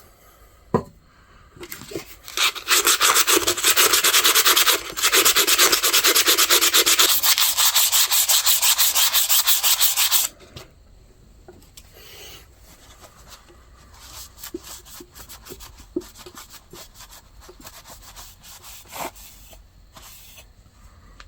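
Sandpaper scrubbing surface rust off steel hand-shear blades. Fast back-and-forth strokes run loud for about eight seconds, then give way to quieter, scattered strokes with a few light clicks.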